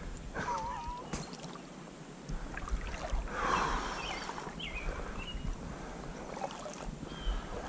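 Water sloshing and swirling around the legs of an angler wading through a river, with a louder splashy stretch about halfway through, while birds chirp in the trees.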